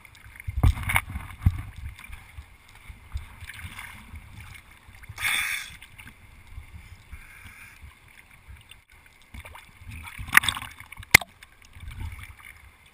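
Water lapping and sloshing right at the microphone, with a low, uneven rumble. There is a brief splash-like rush about five seconds in and two sharp knocks near the end.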